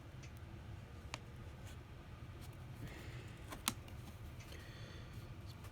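Faint, scattered clicks and light scraping of small repair tools prying an iPhone SE's screen away from its frame, with one sharper click about three and a half seconds in, over a steady low hum.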